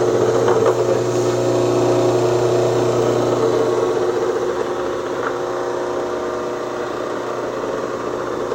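Baldor electric motor spinning a homemade 12-inch disc sander, running smoothly with a steady hum and whir.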